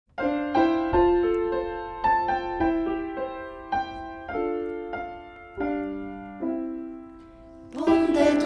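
Piano playing a slow melody of single notes and chords, each struck note left to ring and fade. Near the end a louder, noisier sound swells in over it.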